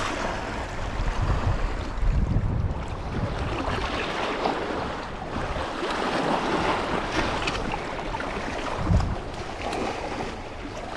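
Steady rush of river water with wind buffeting the microphone in gusts, the strongest about a second in and again near the end.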